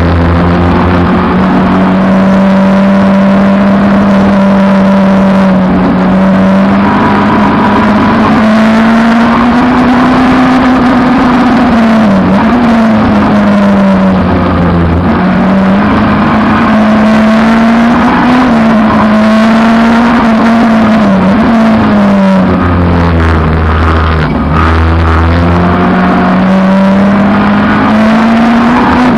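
Peugeot 306 race car engine running hard at racing speed, its pitch climbing and falling as it is driven through the gears. The revs drop briefly several times and then build again.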